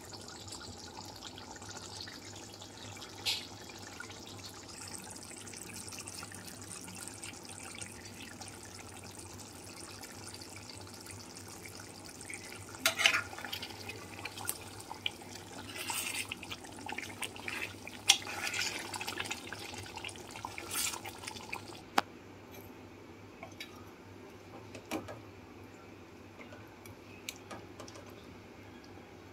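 Thick curry gravy bubbling in an open pot, with steady soft popping and spluttering that gets busier towards the middle. About two-thirds of the way through it gives way to a quieter stretch with only a few faint clicks.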